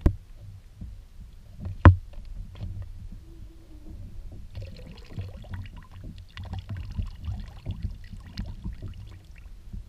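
Lemon-lime marinade draining from a plastic tub of ceviche and trickling into the sea, a faint splashing from about halfway on, over a low steady rumble. A single sharp knock about two seconds in.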